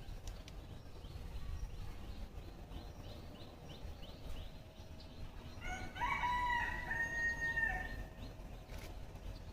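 A rooster crows once, a single pitched call of about two seconds that begins a little before six seconds in. A faint run of short chirps comes before it.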